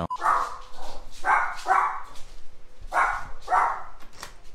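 A dog barking: several short, sharp barks with short pauses between them.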